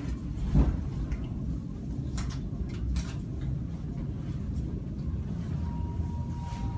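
Low, steady rumble of a cable-hauled funicular car running along its inclined track, with a thump about half a second in. A faint steady high tone comes in near the end.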